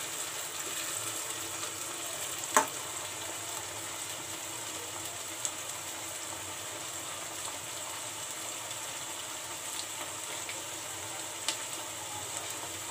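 Chopped tomatoes and onions frying in oil in a kadhai, sizzling steadily. A few sharp taps sound over it, the loudest about two and a half seconds in.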